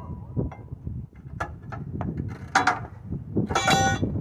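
Metal tyre tools clanking against the steel rim of a large tractor wheel as the tyre is worked off: a few sharp metallic strikes, the loudest one ringing near the end, over a low rumble.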